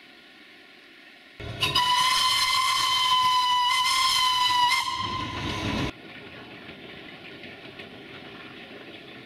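Narrow-gauge steam locomotive's whistle blowing one long steady note for about three seconds, trailing into about a second of escaping steam hiss before cutting off abruptly.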